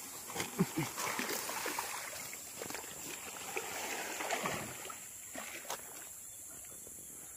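Creek water splashing and sloshing, with scattered knocks and clicks, dying down after about five seconds to a faint steady hiss.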